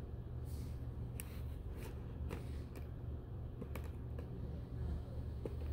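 Scattered soft clicks and rustles of plastic as gloved hands handle a Foley catheter and its plastic tray, over a steady low hum.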